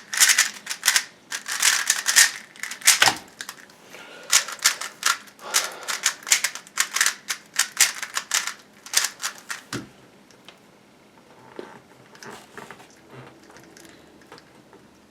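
Aolong GT plastic speedcube being turned fast, with dense rapid clicking of its layers. A brief lull comes about three seconds in. The clicking stops with a thump about ten seconds in, and only faint scattered ticks follow.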